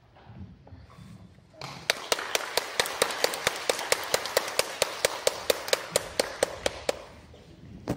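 Audience applauding, with one person's claps loud and close at about five a second. The applause starts about two seconds in and fades out about a second before the end.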